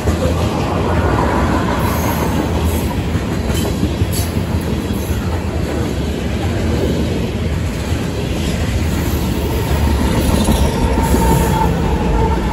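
Freight train of loaded ethanol tank cars rolling past close by: a continuous heavy wheel rumble and rail clatter, with a thin wheel squeal rising in near the end.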